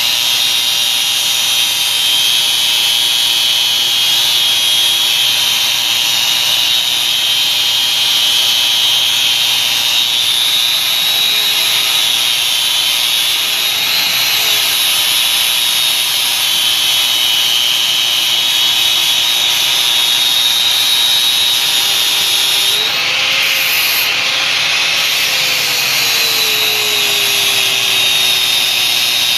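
A power tool running steadily while machining a custom shift knob: a continuous high-pitched hiss and whine over a motor hum. The motor note wavers briefly about three-quarters of the way through.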